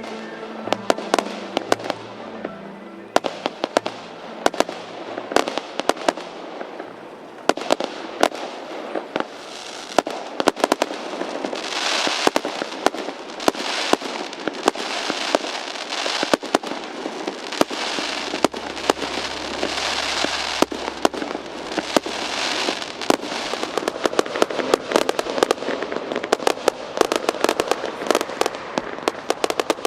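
Fireworks display: a dense, fast run of bangs and crackles, with music playing under it for the first few seconds.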